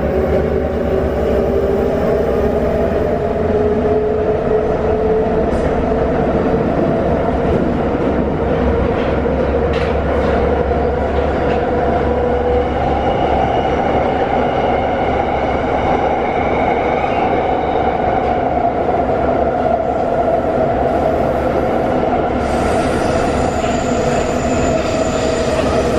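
Inside a Wagonmash series 81 metro car (81-572.2/81-573.2) under way: a steady rumble of wheels on rail. Over it, a motor whine rises in pitch for the first dozen seconds as the train picks up speed, then holds steady.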